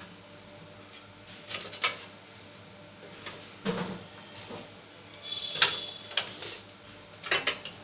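Cables and plastic connectors being handled inside a desktop computer case, giving scattered clicks and rattles against the metal chassis, the sharpest about two thirds of the way through, over a faint steady hum.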